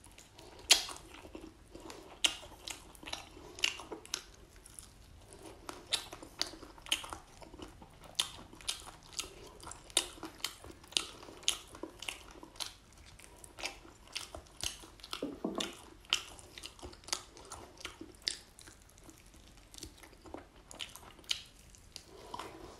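A person biting and chewing grilled crocodile with crispy skin, close to the microphone: many sharp, irregular crunches throughout.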